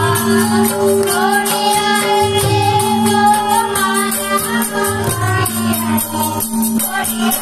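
Gujarati garba song for Navratri: a sung devotional melody over a steady held drone and a quick, even percussion beat of about four strokes a second.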